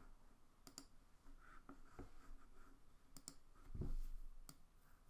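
Computer mouse clicking: two quick double clicks and a single click, with a louder low bump on the desk or microphone near the end.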